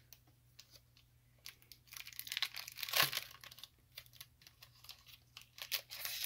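Foil Pokémon booster pack wrapper crinkling and tearing open in short bursts of rustling, loudest about three seconds in and again near the end.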